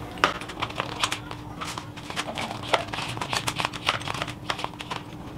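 Irregular light clicks and crinkly rustling of plastic ceiling-fan parts and wiring being handled, over a faint steady hum.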